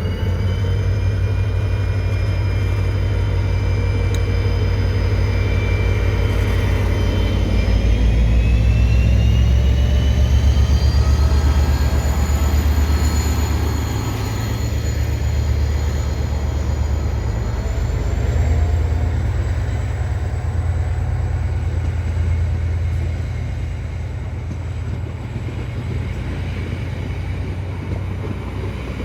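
DFB-class diesel-electric locomotive under power, pulling away: a loud, deep engine sound with a high whine that rises in pitch as the train gathers speed, loudest about ten seconds in, then easing a little.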